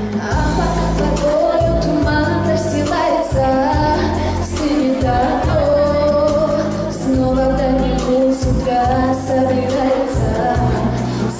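Pop backing track with a steady pulsing bass line and female singing of a melodic line.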